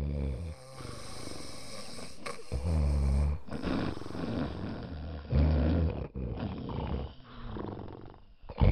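Low, drawn-out animal calls, about four of them a couple of seconds apart, over a steady background haze.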